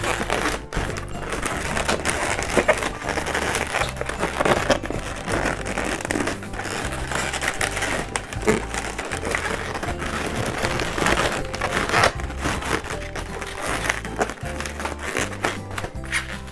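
Latex twisting balloons rubbing and squeaking as hands twist and tuck them into a flower, over background music with a steady bass line.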